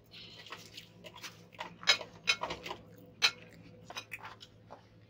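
Metal spoons clinking and scraping against plates as people eat, a scattered run of short clinks with a few sharper, louder ones in the middle.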